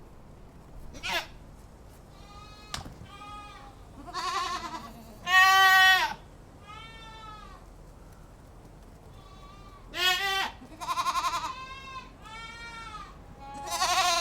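Domestic goats bleating: about a dozen calls of differing pitch and length, some short, some drawn out with a quavering tremble, the loudest ones near the middle and at the end.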